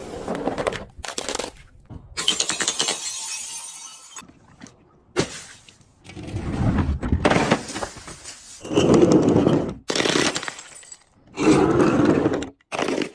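Objects being crushed and breaking with loud crunching and cracking, in a run of short takes that start and stop abruptly.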